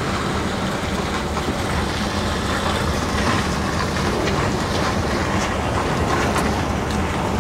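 Inside the cab of a Mercedes Actros lorry driving slowly: a steady engine hum and road noise, with light rattles and knocks from the cab and trailer over rough concrete.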